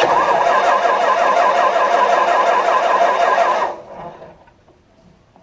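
Starter cranking the freshly rebuilt White 160AX 386 ci six-cylinder gasoline engine in an even rhythmic pulse for nearly four seconds, then stopping. The engine turns over but does not fire.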